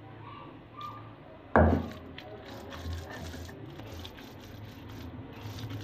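Stone grinding roller (batta) working boiled dal and chicken on a stone sil slab: one loud knock about a second and a half in, then a run of short, uneven scraping and crushing strokes as the paste is ground.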